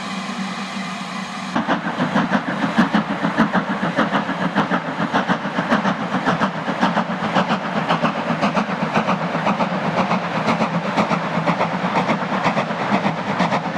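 A steady hiss of steam from a slow-moving BR 8F 2-8-0 steam locomotive. About a second and a half in, it gives way to a 'Super D' 0-8-0 steam locomotive working hard with a freight train: a fast run of sharp exhaust beats.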